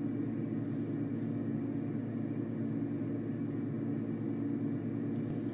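A steady low hum with faint hiss, unchanging throughout: the room's background noise, from something like a fan, heater or electrical hum.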